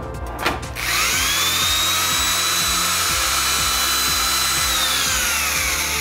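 Electric motor of a motorized power cord reel switched on with a click and spinning up to a steady high whine as it winds the cord. After about four seconds it slows down with a falling whine. Background music plays underneath.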